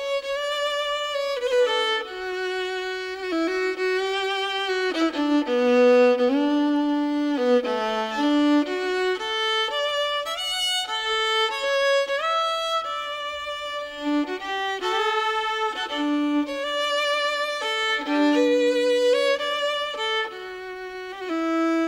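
Music: a violin playing a melody with vibrato, held notes changing every second or so.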